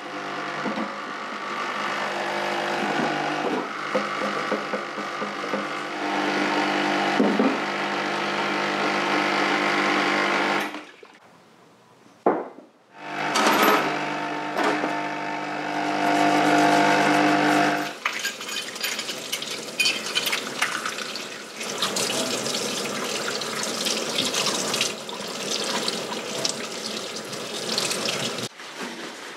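A parts-washer pump hums steadily while a brush scrubs cast fork yokes and bolts under its solvent stream; the hum drops out briefly about eleven seconds in and returns. From about eighteen seconds a kitchen tap runs into a stainless steel sink as a yoke is rinsed under it.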